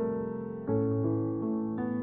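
Slow piano music: sustained chords, a new one struck about every second.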